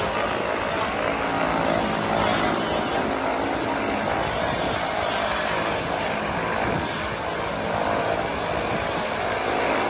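Twin-engine turboprop plane's engines running steadily, its propellers turning, as it sits and turns at the top of the runway.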